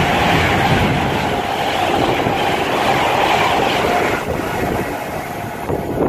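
An express passenger train passing close by at speed, a loud steady rush of wheel and air noise. About four seconds in, the sound changes to another train approaching, a little quieter.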